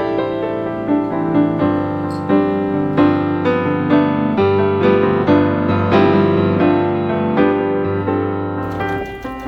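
Instrumental piano music, a continuous flow of notes.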